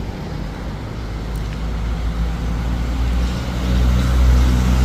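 A motor vehicle's engine running with a steady low rumble that grows louder over the last second or two.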